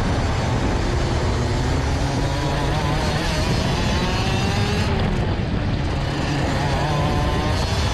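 Rotax Max DD2 125cc two-stroke kart engine accelerating hard out of a slow corner, its pitch climbing, dipping briefly about five seconds in, then climbing again.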